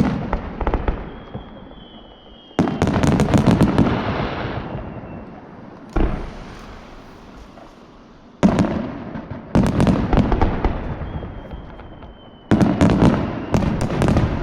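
Aerial firework shells bursting in volleys: four sudden booms, each followed by a cluster of sharp crackles and a slowly fading rumble. A thin, slightly falling whistle sounds twice between the volleys.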